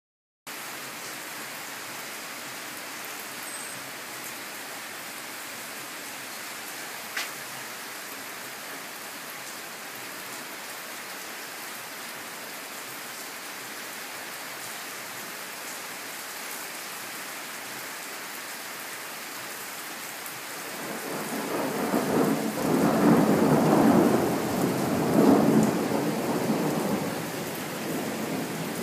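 Steady rain hissing, then about twenty seconds in a long roll of thunder swells up, peaks twice and fades away over several seconds.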